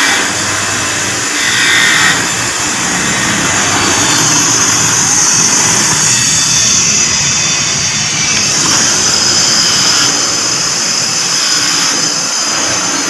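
Bench grinder running steadily with a high-pitched whir, while small power-window switch contact parts are held against its spinning wheel to clean the dirt off them.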